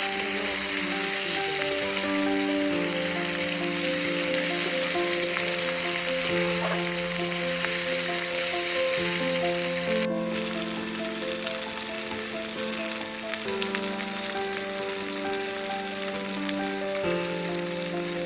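Potatoes, eggplant and small hilsa frying in oil in an iron kadai: a steady, dense sizzle. It changes abruptly about halfway through.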